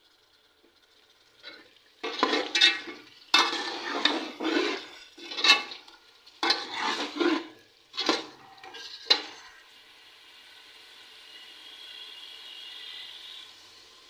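Metal ladle stirring and scraping fried potatoes and peas in a metal pot, about ten strokes over some seven seconds, followed by a faint steady sizzle from the pot.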